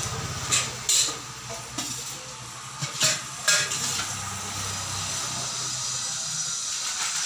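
Steel serving vessels and utensils clinking against each other several times in the first few seconds, over a steady hiss.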